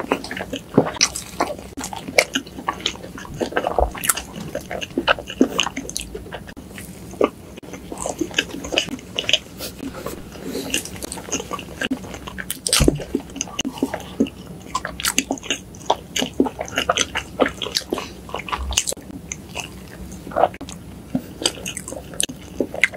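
Close-miked chewing and biting of soft layered crepe cake by two people, full of many small irregular mouth clicks.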